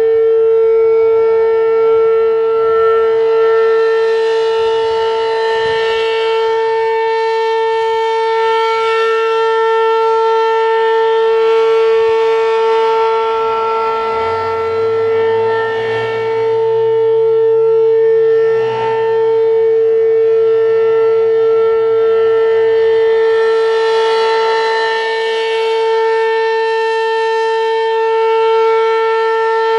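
ASC RM-127 electromechanical outdoor warning siren sounding a steady, unwavering tone during a monthly test. Its brightness swells and fades in turns throughout.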